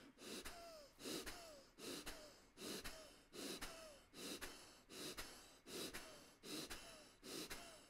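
Faint, rapid rhythmic breathing: short pushes of breath, about one every three-quarters of a second. They come as the belly is let hang and pulled in again in an all-fours abdominal exercise.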